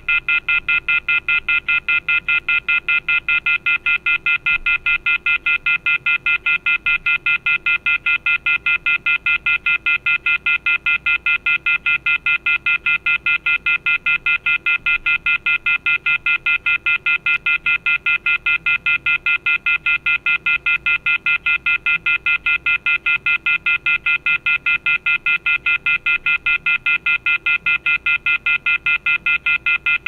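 Telephone off-hook warning tone: a loud, rapid, steady beeping, about five beeps a second, each beep a shrill chord of several high tones. It signals that the handset has been left off the hook.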